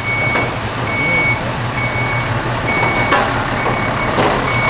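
Vehicle backup alarm beeping steadily at about one beep a second, over the low, steady hum of an idling engine.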